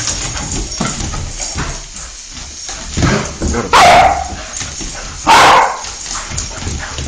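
A Rhodesian ridgeback and a beagle scuffling as they fight, with two loud barks, about four and five and a half seconds in.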